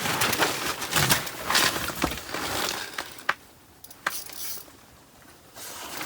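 Crunching, scraping handling noise with a few sharp clicks and clinks, busiest in the first three seconds and quieter after about four seconds.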